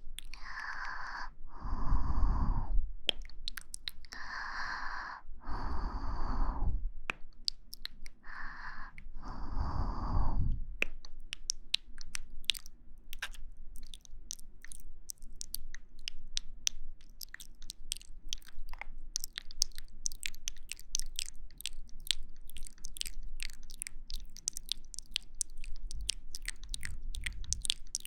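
Close-microphone ASMR breathing: several slow breaths blown right onto the microphone, each with a low rumble. About eleven seconds in they give way to a long run of rapid, soft crackling clicks.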